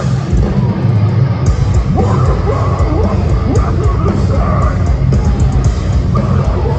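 Heavy band playing live at full volume: distorted guitars, bass and drums in a dense, heavy low end, with sliding pitched notes through the middle.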